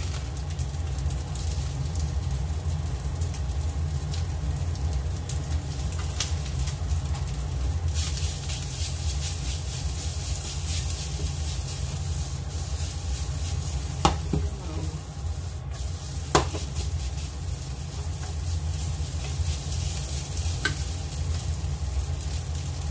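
Fried rice sizzling in a frying pan as it is stirred and turned with a wooden spatula, over a steady low hum. Two sharp clacks come about two seconds apart, past the middle.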